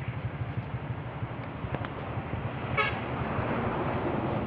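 Motorcycle engines idling with a steady low rumble of road traffic, and a brief vehicle horn toot about three seconds in.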